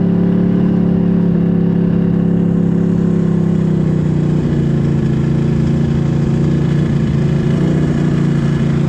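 Engine of a tracked off-road machine running steadily as it travels slowly over a packed snow trail: a constant droning note that shifts slightly in pitch about four seconds in.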